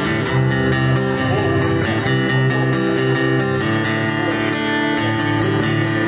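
Acoustic guitar strummed in a steady rhythm, with a bass guitar playing sustained low notes underneath, in a folk tune.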